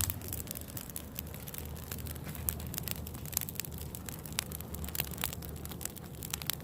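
Burning Christmas tree crackling, with irregular sharp pops and snaps, several a second, over a low steady rumble.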